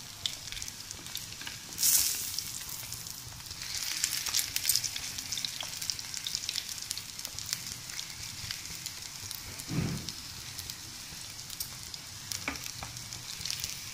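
Potato patties shallow-frying in hot oil in a pan, the oil sizzling with many small crackles and spatters. About two seconds in the sizzle flares up loudly as a patty is turned over with the spatula, and there is a soft thump near ten seconds.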